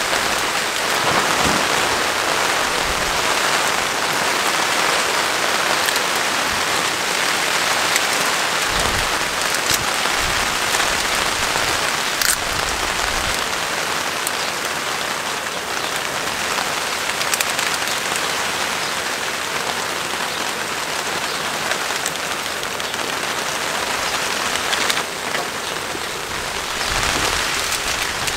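Steady rain falling on a tarp overhead: a dense, even hiss with the odd louder single drop.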